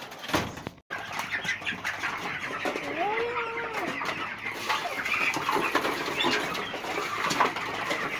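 A dense chorus of many young chicks peeping, with rustling and fluttering among them. About three seconds in, one longer call rises and then falls.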